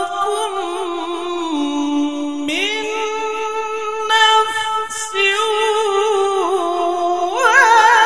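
A qari's high male voice in melodic Quranic recitation (tilawah) into a microphone, holding long drawn-out notes with vibrato that step up and down in pitch. A brief break comes about two and a half seconds in, then a new phrase begins.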